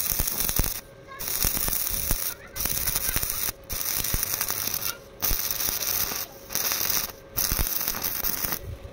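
Stick (arc) welding: the electrode's arc crackling and hissing steadily, broken by about six short pauses where it stops and starts again.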